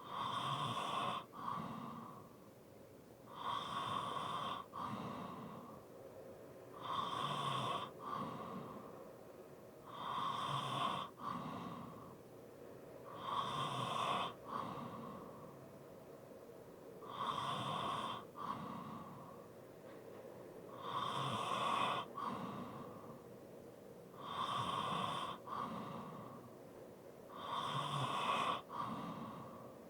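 A sleeping person breathing heavily with light snoring, one long breath about every three and a half seconds.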